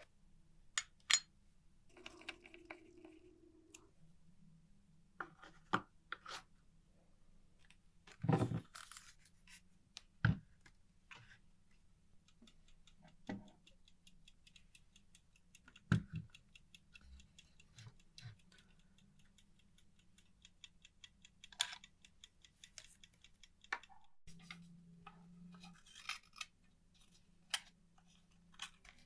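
Scattered sharp clicks and knocks of small parts and tools being handled, with a faint, fast, even ticking through the middle stretch.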